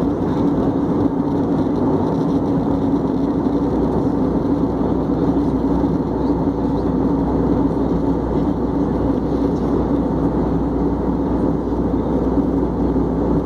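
Steady cabin noise of an Airbus A320 in cruise, heard from a window seat by the wing: a constant rush of airflow and engine drone with a steady low hum.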